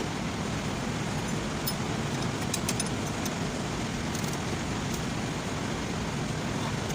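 Steady background noise with a few faint metallic clicks scattered through the middle, as a replacement starter's two mounting bolts are fitted by hand.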